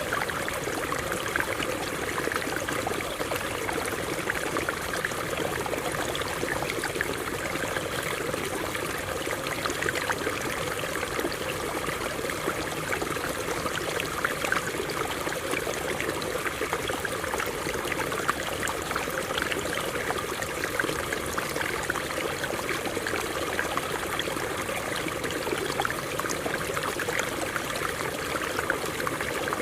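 Stream water running over rocks: a steady rushing with many small splashes throughout.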